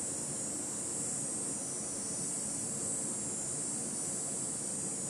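Handheld gas torch burning with a steady hiss, its flame played on thick plastic to soften it for bending.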